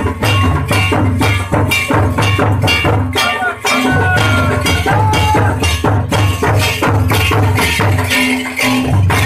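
Drum-led folk dance music: a fast, even beat of drum strokes, about four a second, over a deep pulsing bass, with a melody line that slides in pitch partway through.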